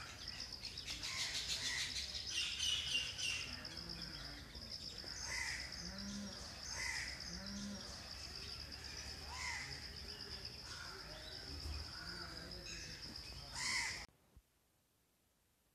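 Crows cawing several times outdoors over a steady high-pitched buzz. All sound cuts off abruptly near the end.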